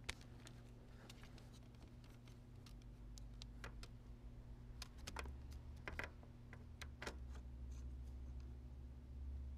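Faint, irregular clicks and light knocks of a 2017 Chevy Silverado's jack being handled and seated into the notches of its mounting bracket, over a steady low hum.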